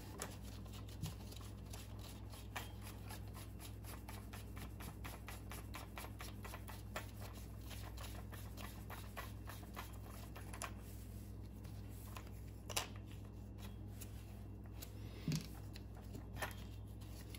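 Faint handling of a plastic trolling motor receptacle and its rubber cover in nitrile-gloved hands: light rustling with many small clicks and taps, and a couple of slightly louder taps in the second half. A low steady hum lies underneath.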